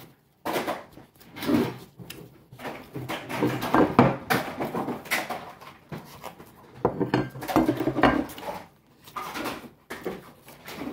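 Close-up chewing and mouth sounds of someone eating a grilled hamburger, coming in irregular bursts, with some handling of the plate.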